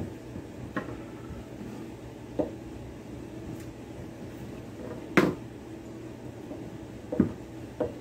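Kitchen knife cutting through summer squash and striking a wooden cutting board: about six separate, irregular knocks, the loudest about five seconds in.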